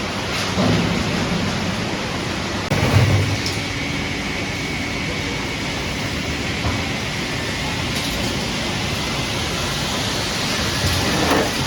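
Steady clatter and rumble of a refrigerator recycling line's machinery running, with sharp knocks about three seconds in and again near the end.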